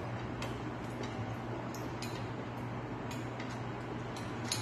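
Metal chopsticks clicking against a porcelain bowl during eating: several short, sharp clicks at uneven intervals, the loudest near the end, over a steady low hum.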